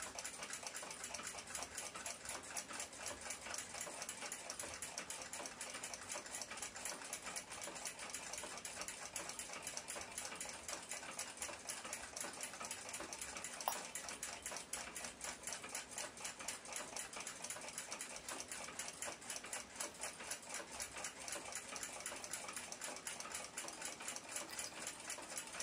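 A running timepiece ticking rapidly and evenly, faint and unbroken. One small, slightly louder click comes about halfway through.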